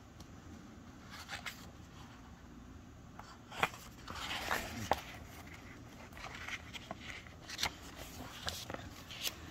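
Pages of a hardcover book being turned by hand: soft paper rustles and swishes with a few light clicks and taps. The longest swish comes about four seconds in.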